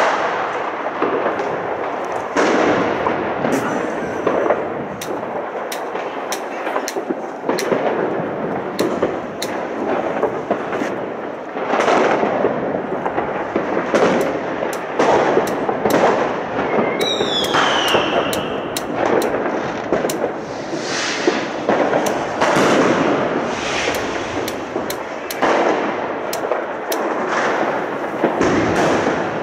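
Many fireworks and firecrackers going off at once, a dense crackle of cracks and bangs that never lets up. About halfway through, a whistling firework gives a falling whistle.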